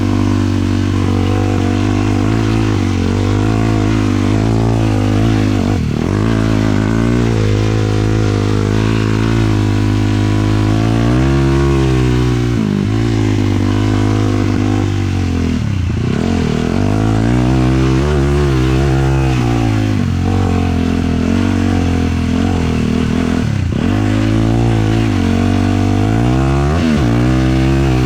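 450 sport quad's single-cylinder four-stroke engine running hard, its revs rising and falling with the throttle and dropping sharply about five times as the throttle is cut or it shifts.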